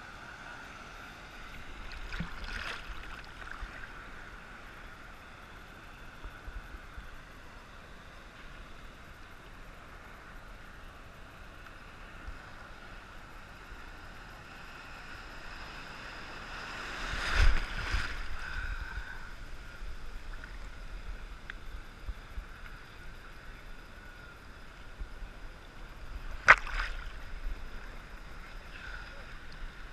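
Small ocean waves sloshing and lapping against a camera held at the water surface, muffled by its housing. Three louder splashes break over it: one a couple of seconds in, a bigger one past halfway, and a short sharp one near the end.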